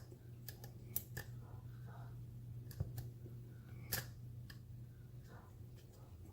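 Scattered faint clicks and ticks of a thin lock pick and tension wrench working the pins in the tight paracentric keyway of a Sargent padlock, the sharpest about one, three and four seconds in. A low steady hum runs underneath.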